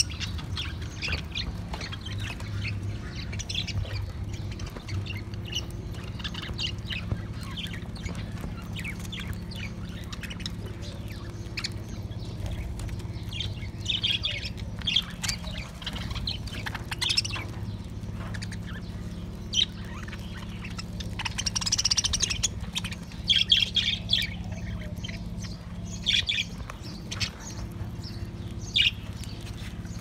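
A flock of budgerigars chattering, a continual run of short high chirps and squawks that grow louder in clusters in the second half. A steady low hum runs underneath.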